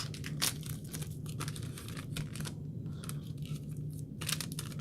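Topps trading-card pack wrapper being torn open and crinkled by hand: a quick run of crackles and rips, with another burst near the end.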